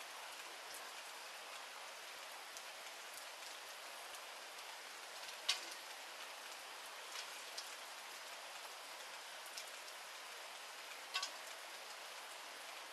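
Steady hiss of rain falling, with a few sharp clicks and taps scattered through it; the loudest comes about five and a half seconds in and another pair near the end.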